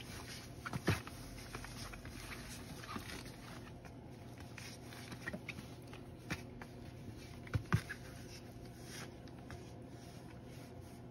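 Two 3.5-week-old Pharaoh Hound puppies wrestling on fabric bedding: scattered soft bumps, scuffs and rustles as they tussle. A louder bump comes about a second in, and a pair of them near eight seconds.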